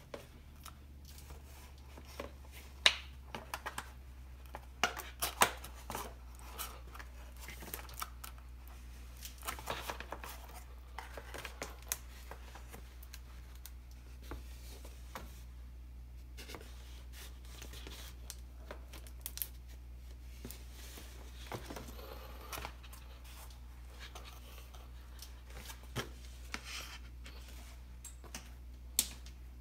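Hands handling a plastic-bottle model airplane and its foam wing: scattered clicks, taps and rustles of plastic and foam, the sharpest about three and five seconds in, over a steady low hum.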